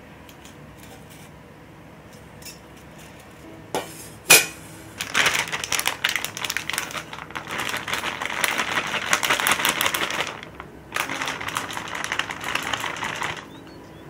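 After a quiet start, a sharp clink of metal on glass about four seconds in. Then the dense, rapid crackle and rustle of a paper bag as cake flour is poured from it into a metal mesh sieve over a glass bowl, with a short break about two-thirds of the way through.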